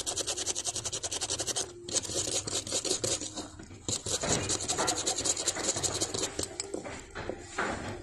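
Rapid scratching and rubbing strokes of a small tool on a hard surface: residual glue being scrubbed off a phone's CPU. The strokes are fast and even for about two seconds, then become more irregular.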